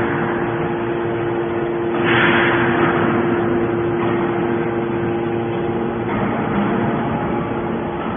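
Hydraulic metal baler running: a steady pump-motor hum, with a rush of noise about two seconds in that fades away over the next couple of seconds.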